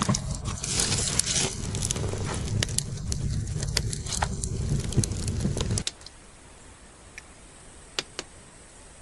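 Wood fire of damp split logs crackling in a small metal barrel stove, with a low steady rumble under the crackles. About six seconds in it cuts to quiet outdoor background with a few faint ticks.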